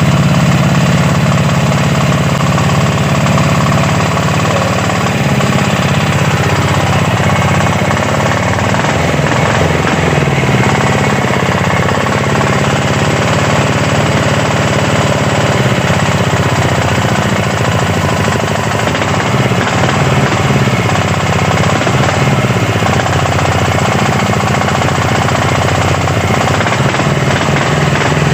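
Weima 12 HP air-cooled single-cylinder engine running steadily and loudly, its pitch wavering slightly.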